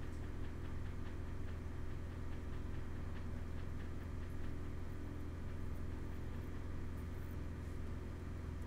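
A steady low hum, with a few faint clicks around the middle.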